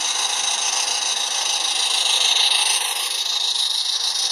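Live-steam model locomotive running past with a train of wagons: a steady hiss that swells a little about two seconds in as it comes closest.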